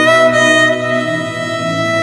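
Background music: one held lead melody note, reached by a short upward slide at the start, over a softer pulsing accompaniment.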